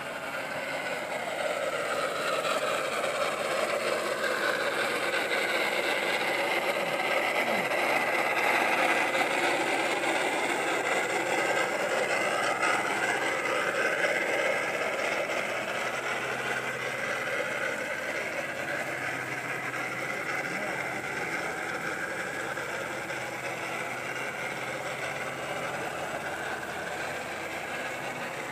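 G scale model Shay locomotive's geared drive whirring as it runs along the track pulling log cars, growing louder as it comes close and fading as it moves away, its pitch sliding slowly up and down.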